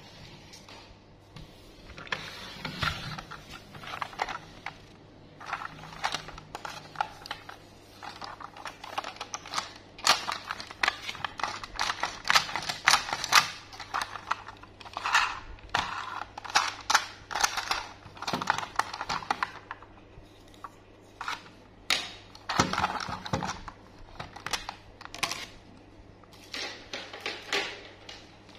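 Hard plastic toy train being handled and turned over: many short clicks, taps and rattles of plastic parts, as its battery compartment cover is worked off.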